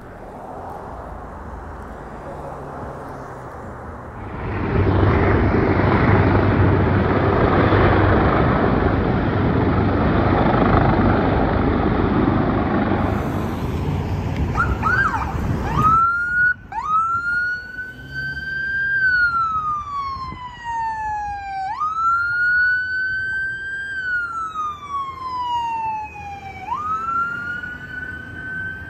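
A loud rushing noise for the first half, then an ambulance siren: a few short chirps, then a wail that climbs quickly and slides slowly down, repeating about every five seconds.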